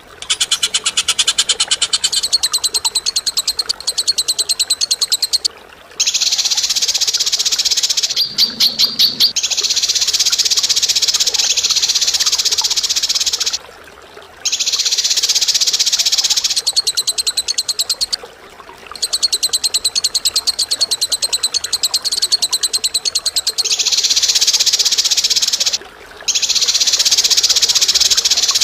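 Recorded bird song: very fast, chattering high trills in long bouts of several seconds each, broken by brief pauses.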